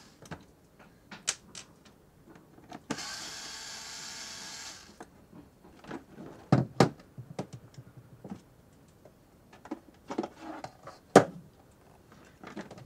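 Cordless electric screwdriver whirring steadily for about two seconds as it backs out the screws holding an instrument panel, then scattered clicks and knocks of the panel and screws being handled as the panel is pulled from the wall, with one sharp knock near the end.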